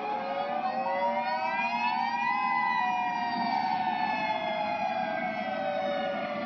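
Outdoor tornado warning siren wailing, several tones sounding together: the pitch rises for about two seconds, then slowly falls.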